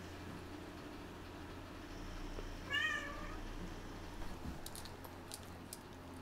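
A cat gives one short meow about three seconds in, rising and falling in pitch. A few faint sharp clicks follow.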